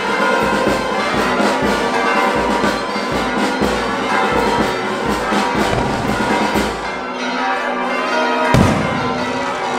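Brass music over a steady low drum beat, giving way about seven seconds in to bells ringing, with one louder strike near the end.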